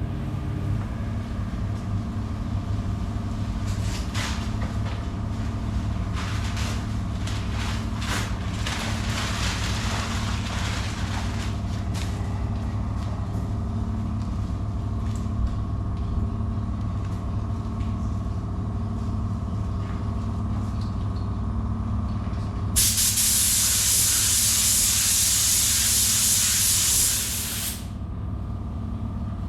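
Spray gun hissing with compressed air as clear coat is sprayed: fainter short passes in the first half, then one loud steady pass of about four seconds near the end that cuts off sharply. Under it, a steady low machine hum.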